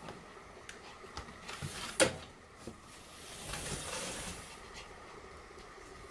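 Pomeranians play-fighting: light scuffling and scattered clicks, with one sharp knock about two seconds in, then a soft rustling hiss a little later.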